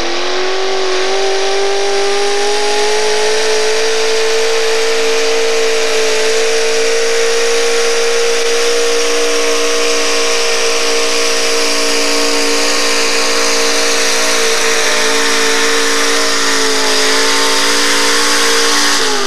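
Modified four-wheel-drive pulling truck's engine running hard at high revs as it drags a weight-transfer sled down a dirt track. The engine note climbs over the first couple of seconds, holds steady, and falls away right at the end.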